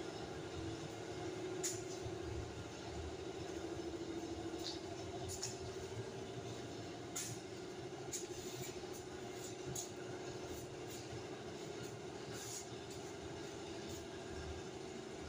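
A steady, wavering drone runs throughout, with about a dozen short light clicks and knocks scattered through it.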